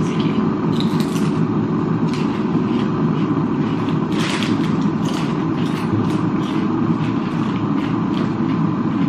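Crinkling of a plastic snack bag and crunching of lentil crisps being eaten, as short crackly bursts that bunch up about four seconds in, over a steady low background hum.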